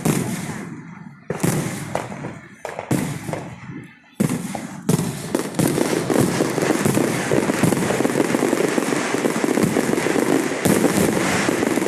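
Fireworks going off: a few separate loud bangs, each trailing off, in the first four seconds, then a dense, unbroken crackle of many firecrackers and shells exploding together.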